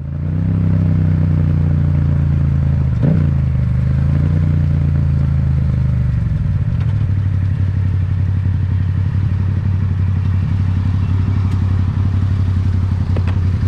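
Yamaha MT-07's parallel-twin engine running steadily at low revs, with a short jump in pitch about three seconds in. From about six seconds its note settles lower as the upper tones fade.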